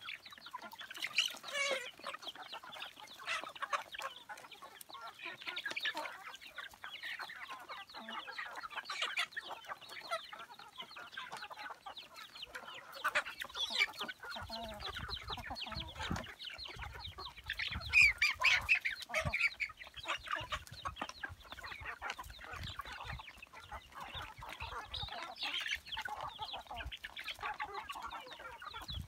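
A flock of young chickens clucking and calling over one another while they peck at feed, a dense, continuous jumble of short overlapping calls.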